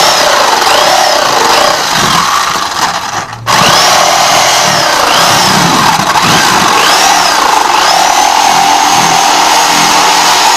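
Electric jigsaw cutting a round speaker hole in a thin wooden board. The motor runs loudly, its pitch rising and falling as the blade works through the curve. It stops briefly about three and a half seconds in, then cuts on.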